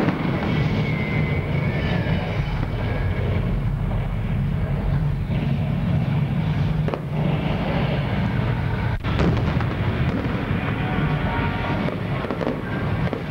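Fireworks and pyrotechnic explosions going off over a continuous low rumble from the show's sound effects, with a sharp bang about nine seconds in.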